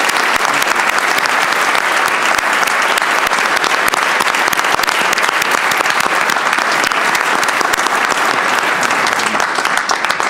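Sustained applause from a standing crowd in a large chamber: many people clapping steadily, thinning out near the end.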